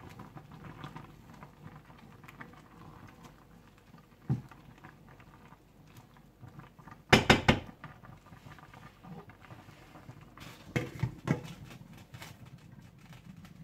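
Kitchen clatter from a pot of tomatoes cooking down: low background noise broken by a few knocks, the loudest a quick run of knocks about seven seconds in, with two more around eleven seconds.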